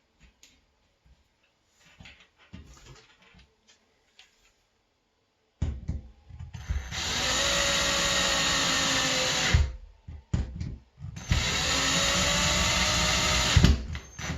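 Power drill driving the bracket's mounting screws into the wall in two steady bursts, the second shorter, with the motor's pitch rising slightly as each runs. A few faint clicks come first.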